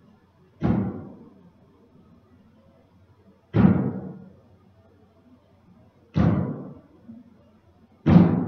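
Four heavy booming hits a few seconds apart, each striking suddenly and dying away over about a second with an echoing tail.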